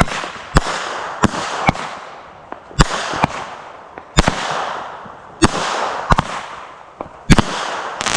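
Fireworks going off: a string of sharp bangs, one every half second to a second or so, each followed by a fading hiss and crackle.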